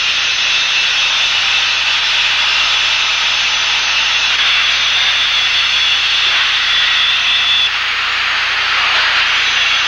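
Welding-shop metalworking equipment running: a steady, loud hiss with a faint high whine in it that stops nearly eight seconds in.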